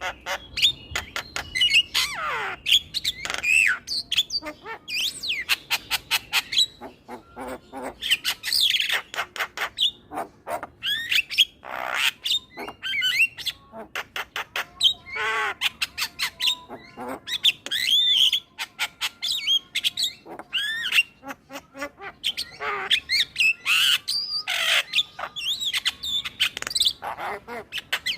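Male Javan myna singing a rapid, varied chatter: fast runs of clicks, whistled notes sliding up and down, and harsh squawks, going on almost without a break.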